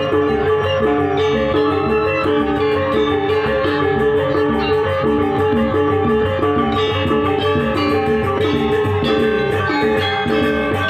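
Balinese gamelan music: many tuned metal notes struck in a quick, even, repeating rhythm.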